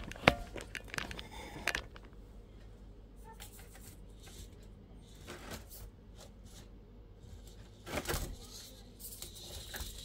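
Small 1/24-scale RC rock crawler clattering over obstacles: scattered sharp clicks and knocks in the first two seconds, then a louder bunch of knocks about eight seconds in.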